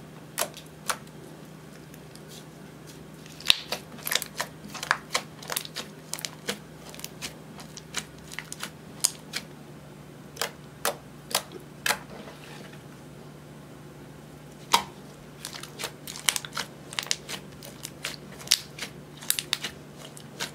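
Clear slime with eyeshadow mixed in being squished and stretched by hand, giving sharp, irregular wet clicks and pops in clusters with short pauses.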